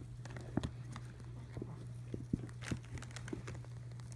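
Baby Holland Lop rabbits munching and rustling through hay: scattered, irregular little crunches and clicks, over a steady low hum.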